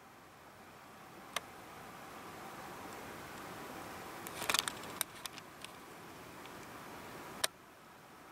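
Faint steady hiss with a few sharp clicks and ticks from handling the camera, the loudest cluster of clicks about four and a half seconds in; the hiss stops abruptly with a click near the end.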